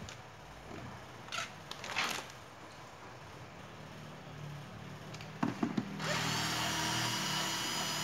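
Cordless drill/driver whirring steadily for about two seconds near the end, backing a screw out of the shower heater's plastic rear cover. A few handling clicks and knocks come before it.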